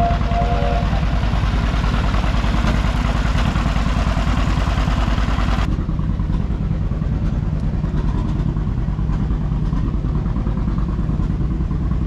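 An engine running steadily with a fast, even low firing beat. About halfway through, the hiss above it drops away suddenly while the engine beat carries on.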